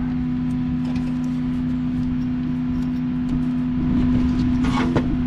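A steady low machine hum with a faint rumble underneath. About four seconds in come a few light clicks and rustles of hands handling the new sensor and its wire.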